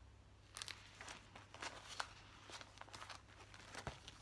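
Faint, irregular rustling and soft clicks of cloth and plastic being handled, as needlework pieces and a plastic project bag are moved about.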